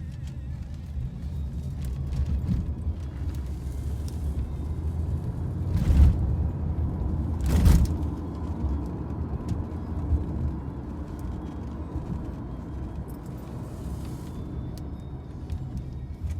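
Car running on the road, a steady low engine and road rumble from inside the taxi. Two brief, louder rushes of noise come about a second and a half apart, partway through.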